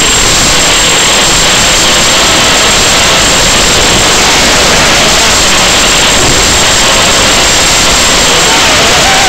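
Loud, steady hiss of static from an analog FPV video receiver's audio channel, with a faint wavering tone underneath.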